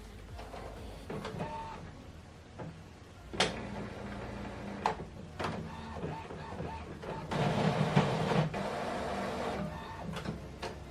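Epson WorkForce Pro WF-7840 inkjet printer's mechanism working through its ink initialization after a cartridge replacement: a steady hum with sharp clicks, then a louder stretch of whirring about seven seconds in that lasts a couple of seconds.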